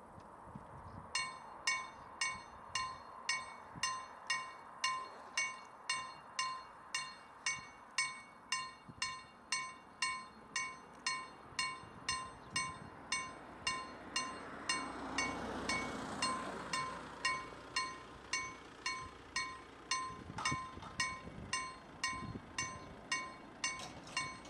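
Level-crossing electronic warning bell (KLD-4003 acoustic signal) ringing at about two strikes a second, starting about a second in: the crossing has activated for an approaching train. A broad rushing sound swells under the ringing in the middle.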